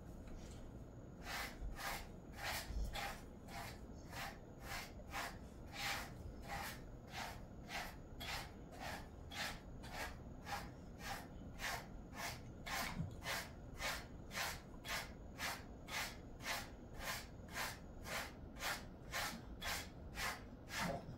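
A pet grooming brush drawn through a Jindo mix's coat in short, regular strokes, nearly two a second, starting about a second in.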